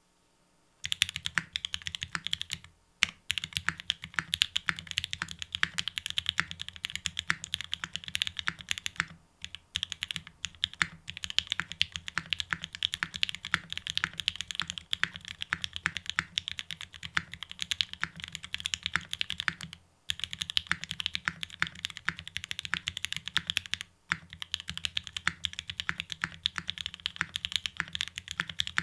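Fast, continuous typing on an F1-8X mechanical keyboard: a dense run of key clacks with brief pauses now and then.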